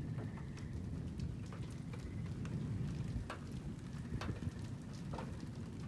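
Rain in a thunderstorm: individual drops striking close by, several a second, over a steady low rumble.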